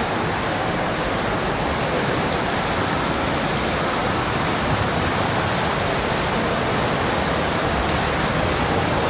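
Steady, even wash of noise in an indoor swimming pool hall: swimmers splashing and churning the water, blended with the hall's echoing din.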